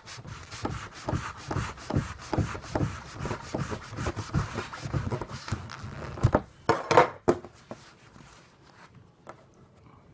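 Knife blade sawing back and forth into a wooden bowling pin through its coating, a quick run of rasping strokes with a few louder ones about six to seven seconds in. It then fades to faint handling sounds.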